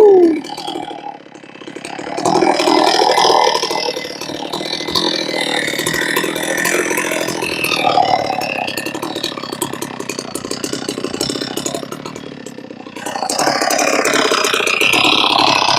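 Chainsaw mill with a 56-inch bar cutting slowly through a log. The engine pitch drops right at the start, then the saw lugs along under heavy load with a fast, rattling, uneven running note that swells and fades. The slow, rough cut comes from a chain whose cutters the sawyer believes were rounded at the working corners.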